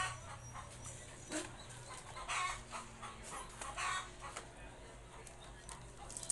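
Chickens clucking faintly in short, scattered calls, with light clicks from plastic clothes hangers being handled.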